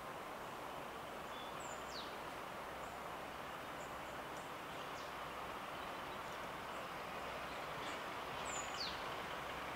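Faint steady noise of a distant diesel-hydraulic locomotive slowly approaching with its train, growing slightly louder near the end. A bird gives a quick falling whistle twice, about two seconds in and again near the end.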